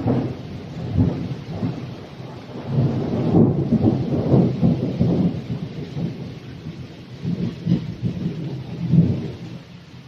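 Long rolling thunder over heavy rain. The rumble swells several times and dies away near the end, with the steady hiss of rain underneath.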